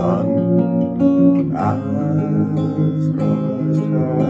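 Acoustic guitar strumming chords, with fresh strokes every half second or so.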